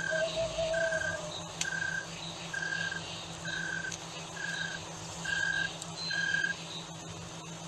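Night-time jungle ambience: an animal repeats a short call note about once a second until it stops near the end. Faint higher chirps and a steady low hum run under it, with a lower drawn-out call in the first second.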